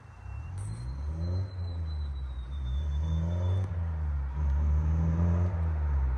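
A 9th-generation Honda Civic Si with a catless downpipe, its 2.4-litre four-cylinder pulling hard in fourth gear toward the listener. The low exhaust note rises in pitch and grows steadily louder as the car closes in.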